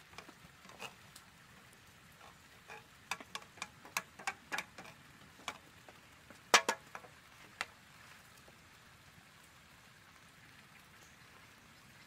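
A knife scraping and tapping food scraps off a metal plate onto a wooden board: a run of small clicks and scrapes, the loudest about six and a half seconds in, then only a faint steady hiss.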